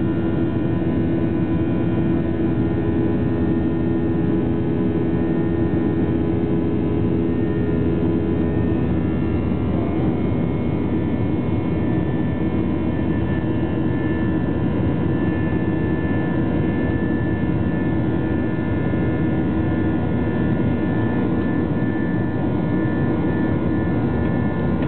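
Jet airliner cabin noise in flight: the engines and airflow make a steady rushing drone, with several steady hum tones running through it.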